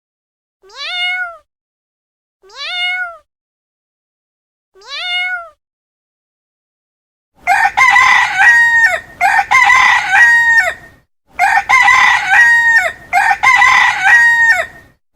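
A cat meowing three times, short meows that rise and then fall in pitch. About halfway through, a rooster starts crowing, much louder, about four long crows in a row.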